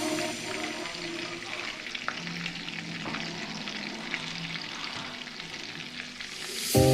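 Food frying in a pan with a steady sizzle, broken by scattered light clicks from stirring.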